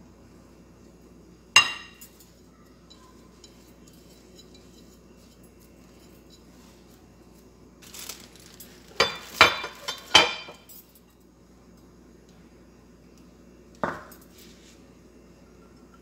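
Dishes clinking against a glass mixing bowl as spices and onion are tipped in: one sharp clink about a second and a half in, a quick run of several clinks around nine to ten seconds, and one more near the end.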